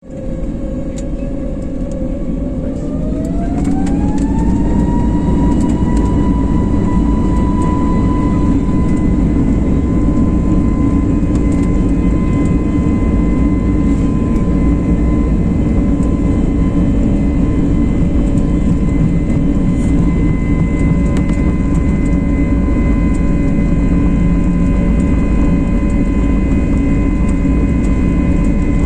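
Airliner jet engines spooling up to takeoff thrust: a whine climbs in pitch over a couple of seconds a few seconds in, then holds steady over a loud, continuous rumble.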